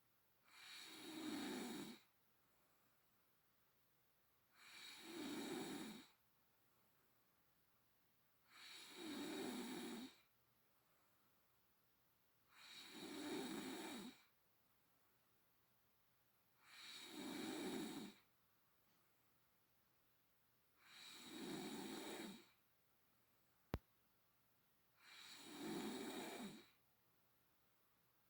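A woman snoring in her sleep: seven long snores, about one every four seconds, with near silence between them. A single sharp click comes about three-quarters of the way through.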